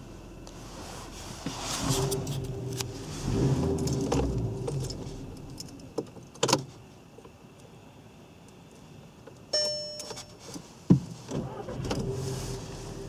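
Skoda Octavia II ignition key and its key fob jangling as the key is turned off and back on in the ignition lock, with two key-switch clicks about halfway through. A single dashboard warning chime rings out a little later, then a sharp click from the ignition switch near the end.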